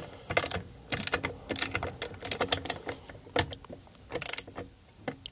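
Ratchet wrench clicking in short, irregular bursts as it runs down the nuts holding a Lambretta gearbox cover plate, not yet fully tightened.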